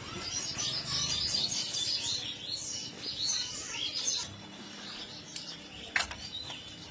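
Small birds chirping in a busy chorus of quick, high calls, thinning out after about four seconds, with one sharp click near the end.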